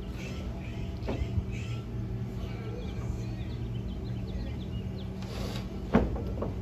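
Outdoor ambience with a steady low hum and small bird chirps. There is a faint knock about a second in and a louder knock on wood near the end, as someone climbs onto the wooden roof framing.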